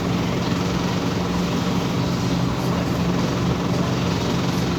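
Scania OmniCity city bus engine running with a steady low drone over road noise.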